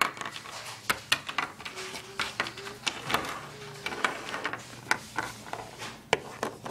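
Handling noise of small plastic toy figures being moved about on a tabletop by hand: irregular light clicks and taps, about two or three a second.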